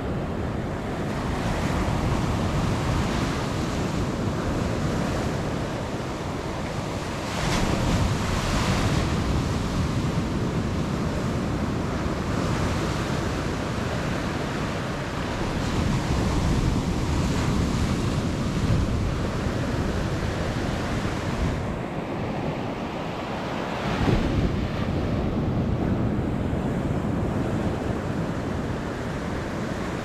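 Sea surf breaking and washing up a sandy beach: a continuous rushing wash with louder wave crashes about a quarter of the way in and again toward the end.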